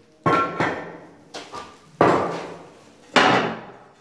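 Three sharp knocks about a second apart, each followed by a short ring that fades within about half a second, with two fainter taps between the first and second.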